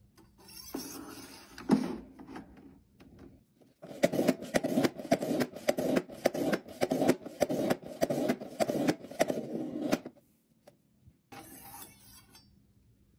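Ninja NeverDull knife block sharpener being worked by hand: a quick run of grinding strokes, several a second, lasting about six seconds, as a knife blade is sharpened. Before it come softer handling knocks.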